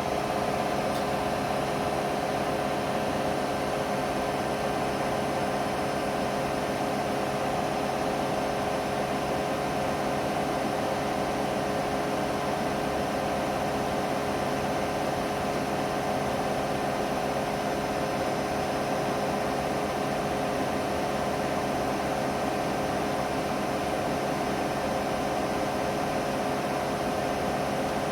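Washing machine spinning its empty drum at a steady 1400 rpm in the final spin: an even motor whine and hum that holds the same pitch throughout.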